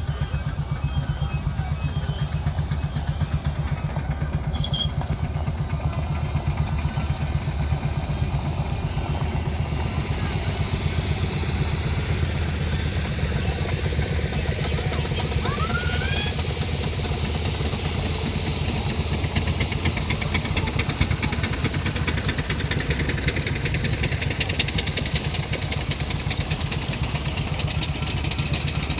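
An engine idling steadily with an even, rapid beat. A brief rising chirp comes about halfway through.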